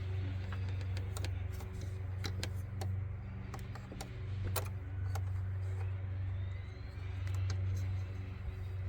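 Scattered small clicks and taps of plastic hose fittings and the oil catch can being handled and pushed into place, over a steady low hum.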